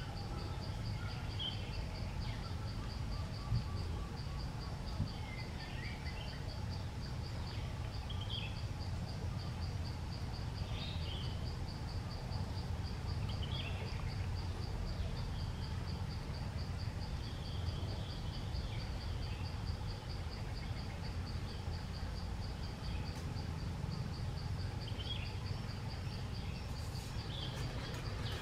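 An insect trilling at a high pitch in rapid, even pulses without a break, with scattered short bird chirps over a low, steady background rumble.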